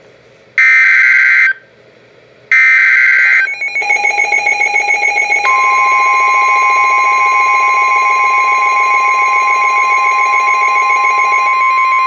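NOAA Weather Radio alert: two harsh buzzing bursts of SAME digital header data, about a second each, then the alert tones begin. A pulsing tone comes in first, then about five seconds in the steady 1050 Hz warning alarm tone sounds and holds.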